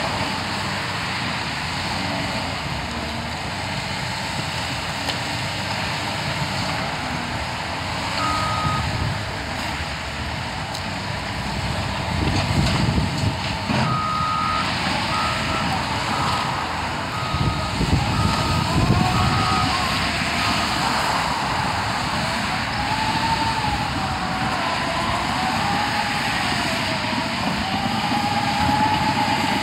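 Diesel engines of a CAT 953D track loader and a John Deere 130G excavator running under load as they work a pile of demolition debris, with heavier rumbling and clatter about 12 and 18 seconds in. A backup alarm beeps in a short run around 8 seconds and again for several seconds from about 14 seconds, and a whine that rises and falls in pitch runs through the second half.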